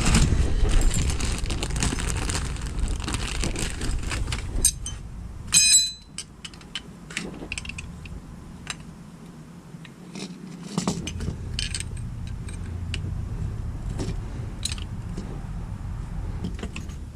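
Metal tools and suspension parts being handled: scattered clinks and rattles, with one ringing metallic clink about six seconds in, over a low background rumble that drops away around the same point.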